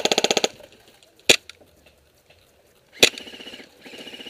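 Airsoft guns firing in rapid automatic bursts, about twenty shots a second. There is a short burst at the start, a single sharp shot about a second in, then two more bursts near the end.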